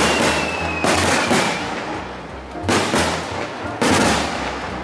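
Aerial firework shells bursting overhead: about four deep bangs, each echoing away. A high whistle, falling in pitch, fades out in the first second or so.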